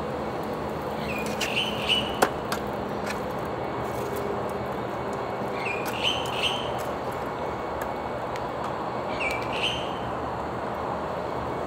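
Pork sizzling steadily on the foil plate of a disposable charcoal Korean BBQ grill, with sharp crackles and pops, the loudest about two seconds in. A bird chirps in three short bursts over the sizzle.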